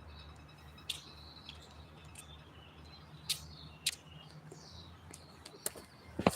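Outdoor ambience: small birds chirping faintly over a steady low hum. A few sharp clicks are scattered through it, with a louder knock near the end.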